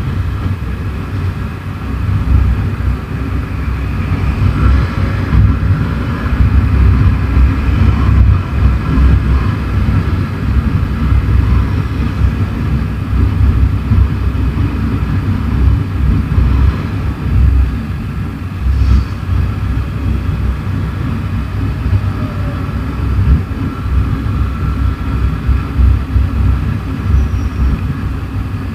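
Riding noise on a moving Honda motorcycle: a loud, uneven low rumble of wind on the microphone over the engine running at road speed.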